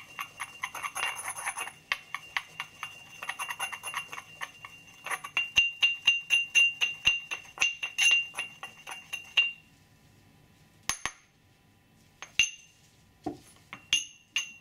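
Porcelain pestle grinding and tapping dry pigment powder in a porcelain mortar: quick ringing clinks of ceramic on ceramic, about three to four a second, which stop about nine and a half seconds in. A few separate knocks follow near the end.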